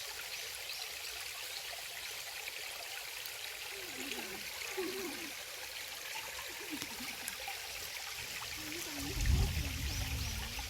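Mountain valley stream running steadily after heavy rain, a continuous rush of water. A short low rumble comes about nine seconds in.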